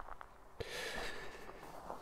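Faint rustle and handling noise from a person moving with a bare scythe blade, starting suddenly about half a second in and lasting a little over a second.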